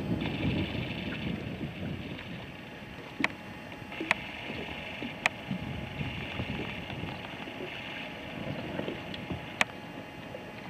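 Wind rumbling on the microphone over the sound of lake water, with four sharp clicks spread through it.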